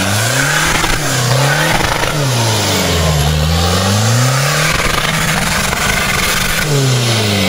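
Off-road competition 4x4's diesel engine working hard under load, its revs climbing and dropping back again and again as the driver works the throttle up a muddy slope, with a steadier stretch after about five seconds.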